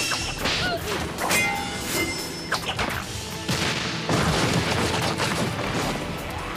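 Anime fight sound effects: several hits and a crash, the loudest about four seconds in, over background music.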